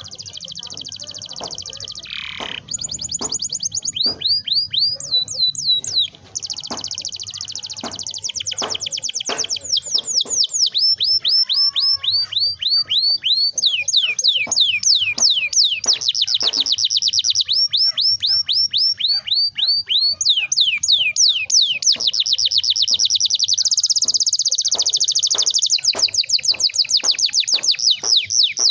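Domestic canary singing a long, almost unbroken song of fast rolling trills and rapidly repeated high notes that sweep downward, many notes a second.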